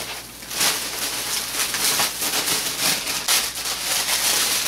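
Rustling and crinkling of a plastic snack package and bedding being handled, a dense run of small crackles throughout.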